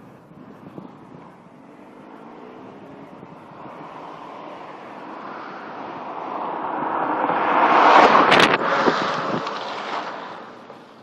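A car driving past: a rushing engine and tyre noise that builds steadily, peaks about eight seconds in, then fades away.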